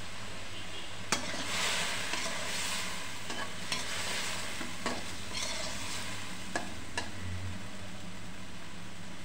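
Eggplant pieces sizzling as they fry in oil in a wok, while a spatula stirs and turns them, tapping and scraping against the pan about six times. The sizzle swells for a couple of seconds as the pieces are turned.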